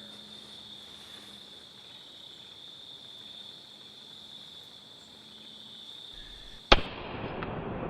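Steady high insect trill, then one loud shot from a Ruger Super Redhawk .44 Magnum revolver near the end, fired at a buck.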